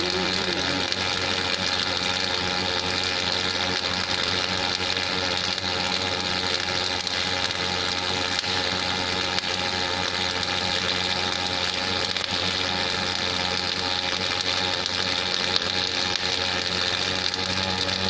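Welding arc of an automatic hydraulic-cylinder welding machine, burning continuously on the turning workpiece under a fixed torch: a steady hiss over a steady machine hum.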